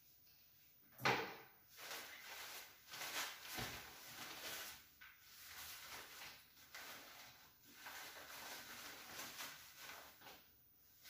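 Handling of a padded fabric rod case: a sharp snap about a second in, then irregular rustling and scraping as the case is turned and opened out.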